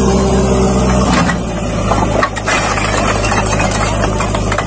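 Diesel engine of a JCB backhoe loader working hard as its boom shoves a stuck, brick-laden tractor trolley, its note changing about a second in. From about two seconds in comes a run of metallic rattling and clatter.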